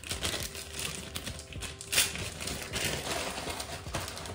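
Hands handling the flosser and its plastic packaging out of a box: irregular light clacks, knocks and rustling, with one sharper click about two seconds in.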